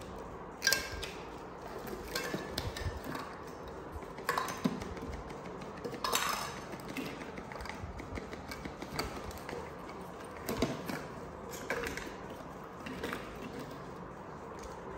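Irregular light knocks, taps and clinks of plastic bottles and a metal formula can being handled, with about a dozen short sharp sounds spread through.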